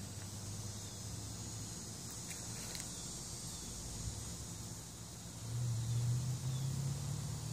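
Outdoor background: a low droning hum that grows louder about two-thirds of the way in, over a faint steady high hiss.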